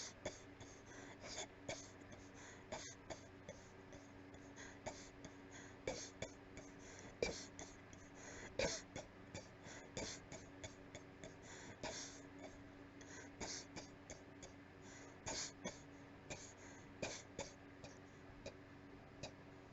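A person in a weak, breathy coughing fit: a long, irregular run of short, airy coughs, several a second at times.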